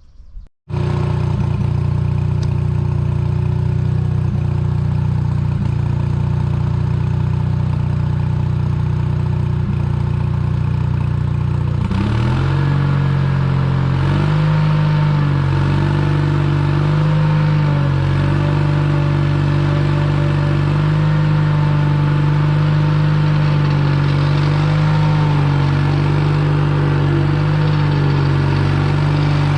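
Engine of a Case 1816 mini skid steer running steadily, then revved up about twelve seconds in, its pitch sagging briefly and recovering every couple of seconds.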